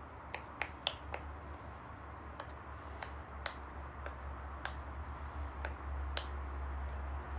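Silicone pop-it fidget toy shaped like a game controller, its bubbles being pressed one after another: a string of sharp, irregularly spaced pops, about a dozen in all.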